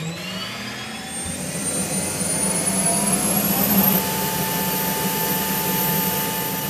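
1950s AiResearch gas turbine in the Ghia Gilda spooling up with a rising whine over a hiss, levelling off to a steady high whine about four seconds in.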